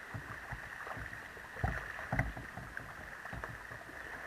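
Kayak paddling heard close up: paddle strokes and water slapping against the plastic hull, with irregular knocks, the two loudest about a third and halfway through.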